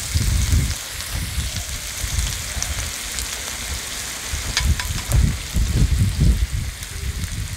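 Potato cubes frying in oil in an aluminium karahi, a steady sizzle, with gusts of wind rumbling on the microphone. Two light clicks a little past halfway.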